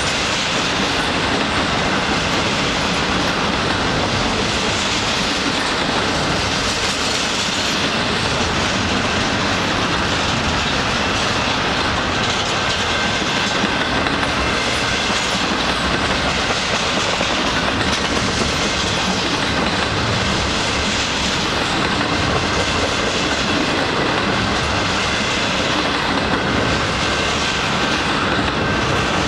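Freight train of container-carrying well cars and flatcars rolling steadily past a level crossing, its wheels running on the rails, with a steady ringing tone from the active crossing signals.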